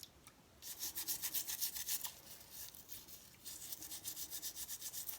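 Old toothbrush scrubbing gunk off a sink drain in rapid back-and-forth strokes, about five a second, with a short pause about three seconds in.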